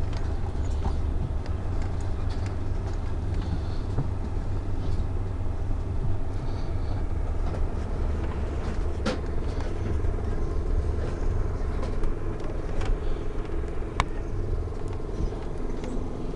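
Amtrak California Zephyr passenger train running: a steady low rumble of the train on the rails, with a few sharp clicks.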